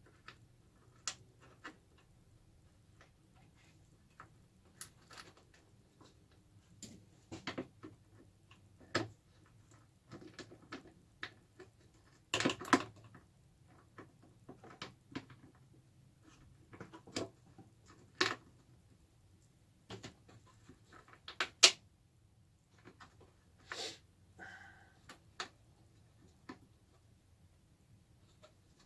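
Scattered clicks, taps and light knocks from a plastic fresh-air box housing and a screwdriver being handled as it is worked on, at irregular intervals with a few louder knocks.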